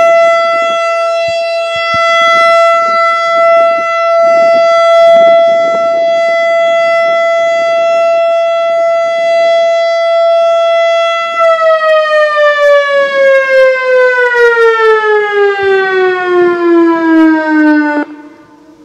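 ASC Quadren Q-3200 electronic outdoor warning siren sounding its steady Alert tone. About eleven seconds in, the tone falls steadily in pitch as the signal winds down, then cuts off suddenly near the end.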